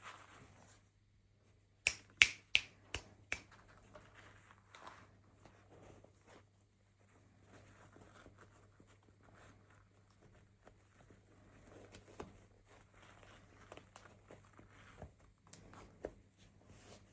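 A quick run of about six sharp clicks about two seconds in, then faint scattered ticks and rustling, as of small hard objects being handled.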